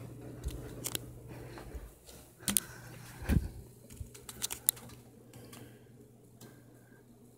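Handling noise from a handheld camera being carried around a room: scattered, irregular clicks and taps, the loudest about two and a half and three and a half seconds in, over a steady low hum.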